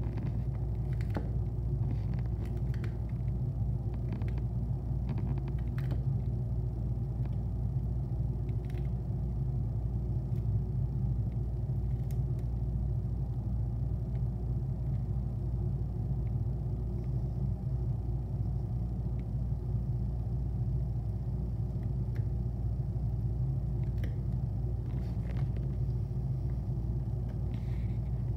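A steady low rumble, with faint, scattered crisp clicks of a small tortoise biting and tearing romaine lettuce.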